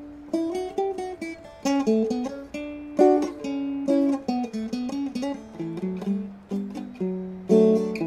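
Seagull Merlin dulcimer being picked: a tune of quick plucked notes over steady ringing drone strings.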